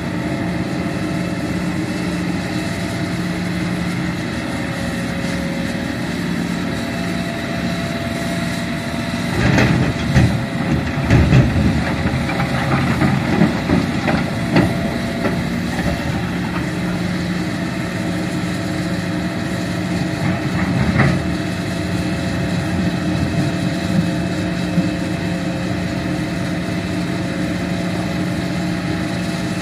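Hitachi Zaxis 210F hydraulic excavator at work with its diesel engine running steadily. From about a third of the way in there are several seconds of irregular clattering and thuds as a bucketload of earth and rock is handled and dropped into the dump truck's steel bed, with another knock about two-thirds in.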